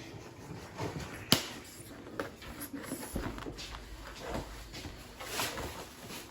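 Soft rustling and handling noises as clothing and gift items are moved about, with scattered small knocks and one sharp click about a second in.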